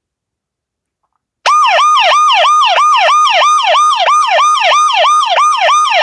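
Siren MP3 played back by a Python script on an Android phone: a fast electronic yelp, rising and falling about three times a second, starting about a second and a half in.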